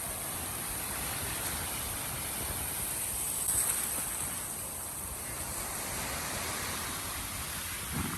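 Steady wash of ocean surf, swelling and easing slowly, with wind rumbling on the microphone.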